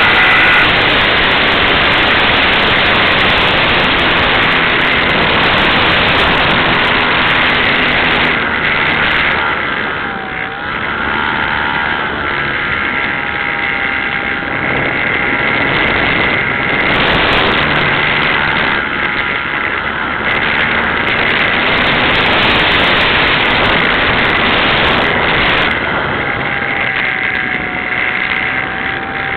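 Wind buffeting the microphone in a steady rough rush. Through it runs the thin whine of a radio-controlled Skyartec Cessna 182's electric motor and propeller, and a lower whine comes in about a third of the way through and again near the end.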